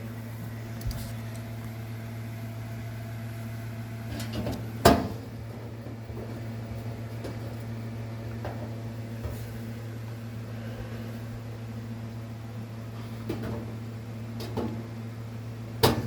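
Sharp clicks and knocks of metal dryer parts being handled and fitted together as the new heating element assembly is put back in place, the loudest about five seconds in and another near the end. A steady low hum runs underneath.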